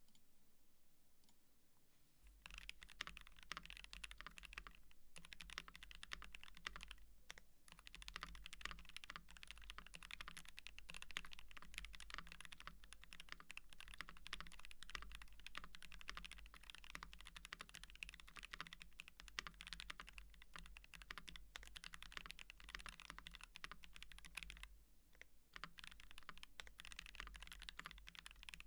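Fast, continuous typing on an Ikki68 Aurora R1 mechanical keyboard with Gateron Box Ink V2 linear switches, lubed with Krytox 205g0 and filmed, under GMK Kaiju keycaps. The typing starts about two seconds in and pauses briefly near the end.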